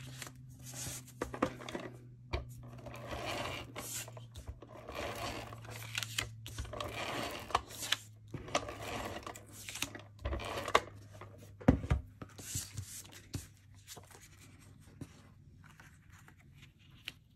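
A handheld adhesive tape dispenser drawn in several short strokes across the back of a paper panel, each stroke a brief raspy zip with a few clicks. Near the end the paper is laid on a card and pressed down, much more quietly.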